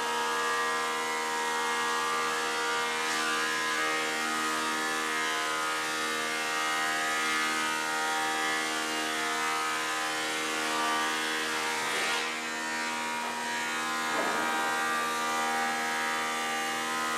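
Delta DC-580 20-inch thickness planer with a 5 hp single-phase motor running, a steady machine hum with several pitched tones, while it planes kiln-dried red oak boards. A few brief rushes of noise come through, one about three seconds in and two in the last third.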